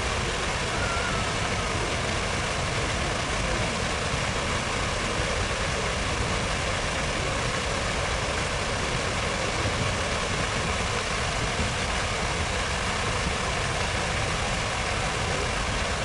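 Steady, even outdoor city ambience: reflecting-pool fountain water splashing over a low hum of traffic, with no sudden events.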